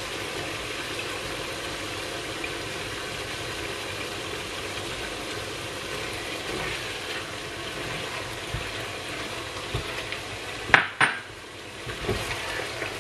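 Lamb pieces frying with a steady sizzle in a pot while chopped tomato is spooned in and stirred, with light scrapes and clinks of the spoon and spatula. A sharp utensil knock comes near the end.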